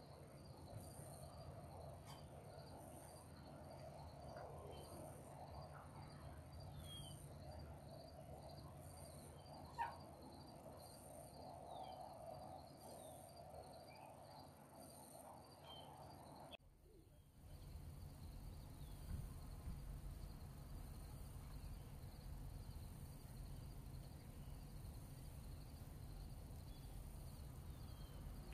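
Near silence with faint insects chirping in steady rhythms, one pulsing about once a second and another faster. The chirping cuts off suddenly about two-thirds of the way through. There is a brief click near the middle.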